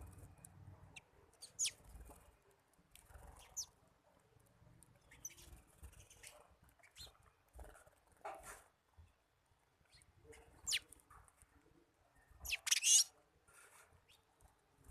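Birds chirping: scattered short, sharp calls, some dropping quickly in pitch, with a louder burst of several calls near the end.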